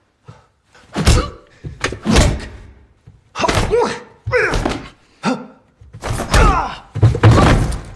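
Men fighting: a run of heavy thuds and blows, about one a second, each with a grunt or strained yell.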